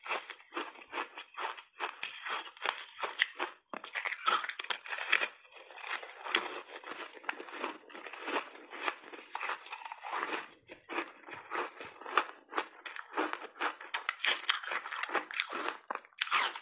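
Frozen layered ice sandwich crunched and chewed in big bites: a dense, irregular run of sharp cracks and crunches, several a second, without a break.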